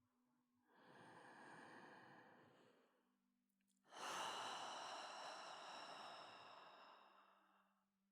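A person breathing slowly and audibly close to the microphone, a guided breath: a softer breath about a second in, then a louder, longer exhale like a sigh that starts sharply at about four seconds and slowly fades. A faint steady low hum sits underneath.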